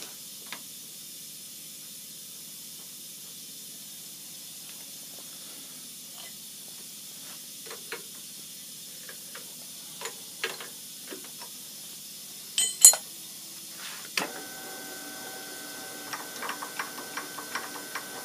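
Small metal clicks and taps as an end mill is fitted into a benchtop mill's R8 spindle, with a louder double clack a little past the middle. About two seconds later a steady machine hum starts and carries on under more light clicking.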